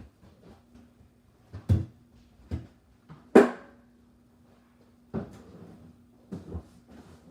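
A handful of separate knocks and clunks of objects being handled and set down on a hard surface, the loudest about halfway through with a short ringing tail, over a faint steady hum.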